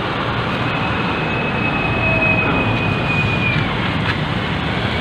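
Steady street noise of motor traffic. A thin, high, steady whine runs for about three seconds from roughly half a second in.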